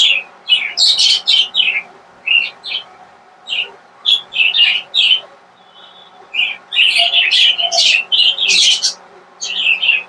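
A flock of budgerigars chirping and chattering in quick, sharp bursts, with a brief lull about halfway through and a dense run of chatter in the second half.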